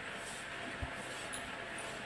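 Quiet room tone: a steady hiss, with one soft low thump a little under a second in.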